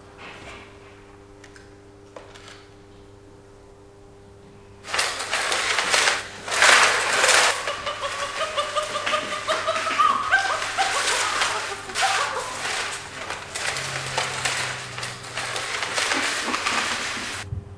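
Low hum at first. About five seconds in, loud continuous scraping and clattering starts as a chimpanzee drags a laptop across a tiled floor, with a few rising calls in the middle.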